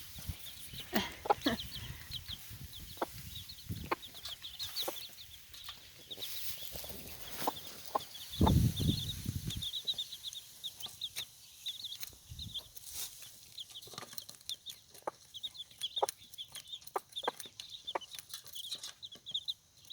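Four-day-old chicks peeping constantly in short high chirps, with their mother hen clucking now and then. A louder low rumble comes in briefly about eight and a half seconds in.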